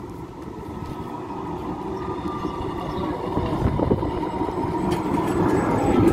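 A tram drawing closer, its rumbling running noise growing steadily louder, with a faint whine over it.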